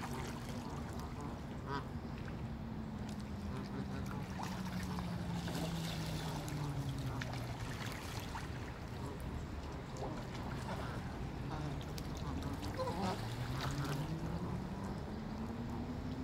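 A flock of Canada geese on the water giving scattered short calls. Under them runs a steady low hum that slowly falls in pitch and rises again near the end.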